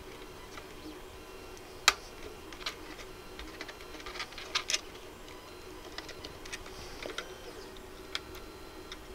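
Scattered small plastic clicks and taps as wire-harness connectors are handled and pushed onto the pin headers of a Technics 1210 turntable's main circuit board, over a faint steady hum. The sharpest click comes about two seconds in, with a cluster of clicks around four and a half seconds.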